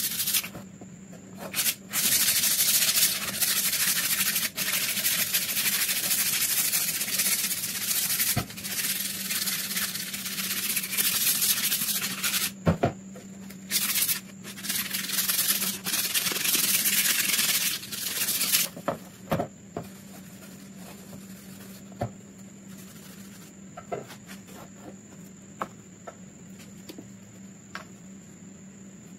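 Wooden rifle stock hand-sanded with a folded pad: continuous scratchy rubbing strokes with a few short breaks, stopping about two-thirds of the way through. After that, a few light clicks and taps.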